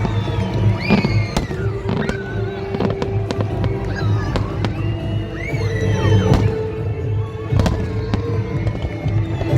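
Fireworks bursting at irregular intervals, with a series of sharp bangs and crackles, over loud background music.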